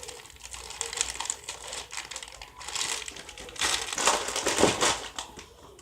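Plastic candy-bag packaging crinkling as it is handled and torn open, a run of irregular crackles that grows louder about three and a half seconds in.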